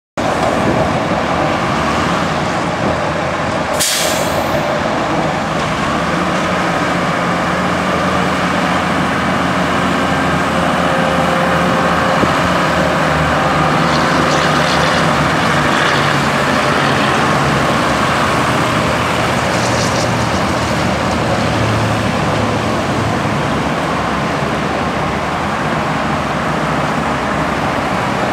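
Cummins six-cylinder diesel engine of a 1992 Taylor TE2505 lift truck running steadily as the truck is driven, with one brief sharp sound about four seconds in.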